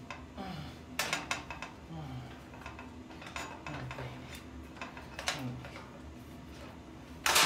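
Light metal clinks and knocks from the steel trays and uprights of an IKEA RÅSKOG cart being handled during assembly, a few scattered taps, with a sharper knock near the end.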